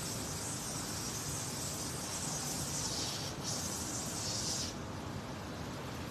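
Water spraying as plants are watered: a steady hiss that breaks briefly just past halfway and stops about three-quarters of the way through.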